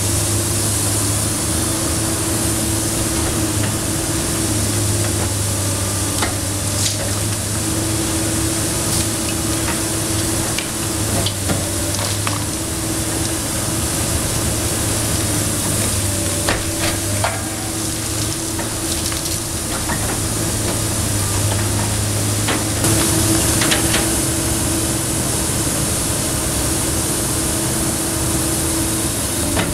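Komatsu PC290 NLC excavator's diesel engine running steadily under the constant hiss of a dust-suppression water spray. Scattered cracks and knocks come from masonry as the demolition grapple crushes the roof and rubble falls.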